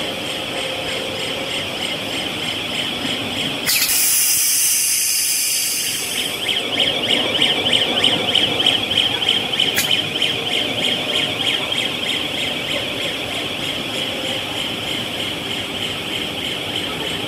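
Cast film line's winding station running through an automatic roll change, with a steady high-pitched whine. About four seconds in comes a loud hiss lasting about two seconds, and a single sharp click near ten seconds.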